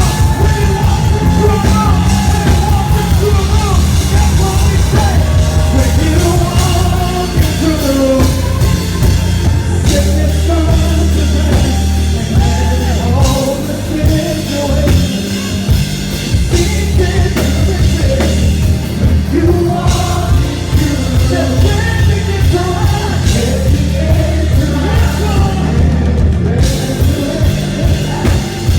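Live worship music: a band with heavy bass and drums playing while voices sing.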